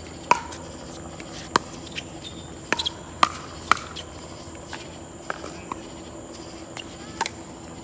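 Pickleball rally: paddles hitting the hollow plastic pickleball with sharp pops, about half a dozen hard hits in the first four seconds, then a few lighter taps near the end.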